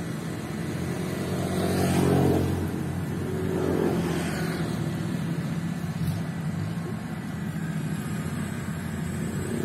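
Small rice combine harvester's engine running as the machine cuts its way through standing rice, swelling louder about two seconds in and again around four seconds.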